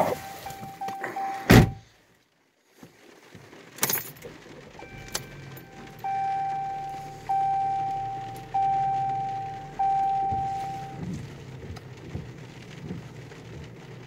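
A car door shuts with a heavy thump about a second and a half in. Then the car's warning chime dings over and over, about one ding every 1.2 seconds, each ding fading away.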